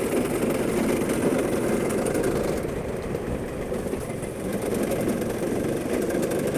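Go-kart engine running steadily, a dense mid-pitched drone that eases off a little around three to four seconds in and then picks up again.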